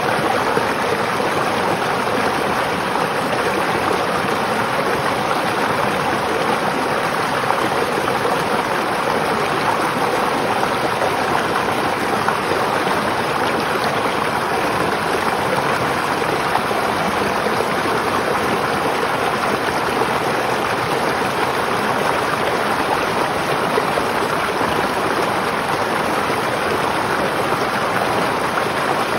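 River water flowing over stones, a steady rushing and burbling with no breaks.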